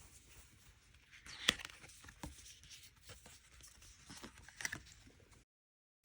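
Photocard pack being handled and torn open: soft rustling and crinkling of the wrapper with a few sharp clicks, the loudest about a second and a half in. The sound drops out completely shortly before the end.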